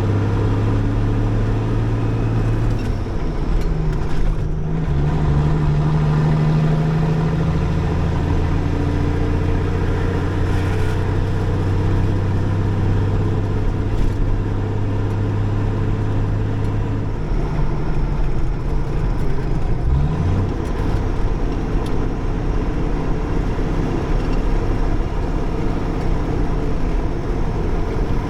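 Old International Eagle semi truck's diesel engine running under way, its low engine note changing pitch several times, with a brief glide about twenty seconds in.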